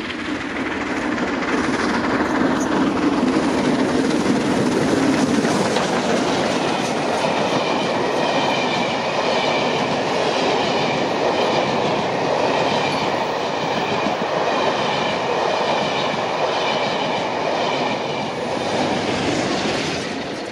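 Steam-hauled train passing close by, rolling along the rails. A low rumble in the first few seconds gives way to the run of carriages, with a faint high ring from the wheels on the rails through the middle and later part.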